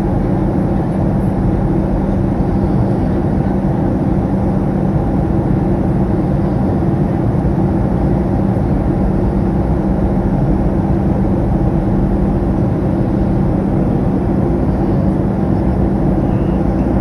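Steady cabin noise inside a Boeing 737 airliner in cruise: an even rush of jet engines and airflow with a steady low hum.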